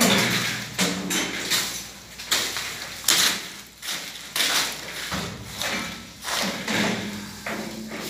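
A sheet-metal plenum box being pushed and shifted into place on top of a ceiling air-supply diffuser, giving a series of irregular knocks and thuds, about one a second.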